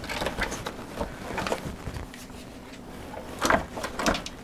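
Scattered light knocks and clicks, with two louder knocks about three and a half and four seconds in, over a faint steady hum.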